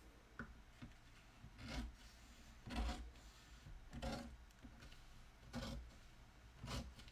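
Faint rustling and rubbing of vinyl decal backing paper and transfer tape being peeled back and handled, in about six short bursts a second or so apart.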